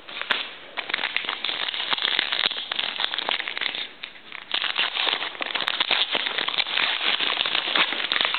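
A trading-card pack's wrapper being torn open and crinkled by hand: dense crackling with a short lull about four seconds in.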